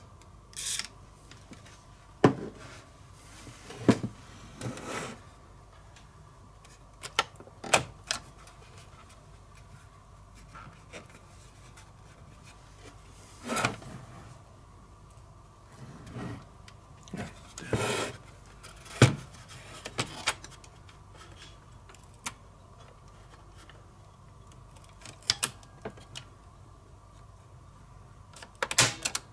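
A short hiss of contact-cleaner spray into a switch of a Sanyo M2420 radio cassette recorder, under a second in. After it come scattered clicks, knocks and rubbing as the opened set is handled and its switches pressed.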